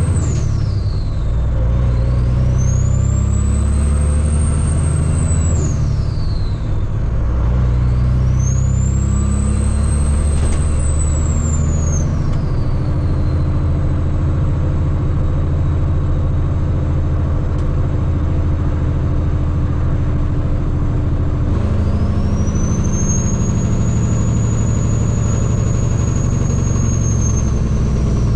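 Heavy diesel truck pulling through its gears: the engine note climbs and drops back with each shift. A high whine rises and falls with it three times, then holds steadier for several seconds near the end.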